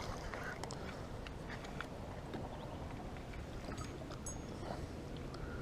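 Steady water noise beside a small boat, with faint scattered ticks.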